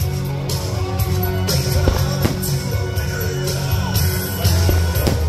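Rock-style music with singing over a steady bass and drum beat.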